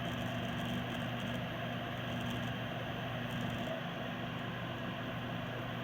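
Coleman mobile home gas furnace's draft inducer motor running steadily with a constant low hum, during the furnace's ignition sequence.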